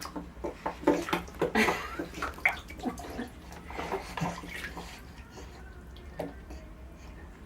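Repeated short, wet smacking noises in a bathtub, with water splashing; the smacks come thick and fast at first and thin out after about five seconds.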